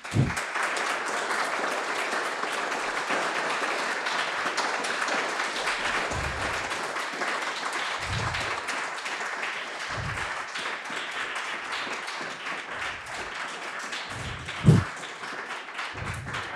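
Audience applauding, a dense steady clapping that slowly fades. A few soft low thumps sound through it, one sharper near the end.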